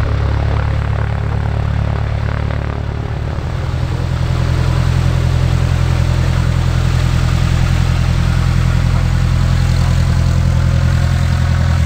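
Cessna 172R Skyhawk's four-cylinder Lycoming engine and propeller running at a steady, unchanging pitch, growing a little louder about four seconds in.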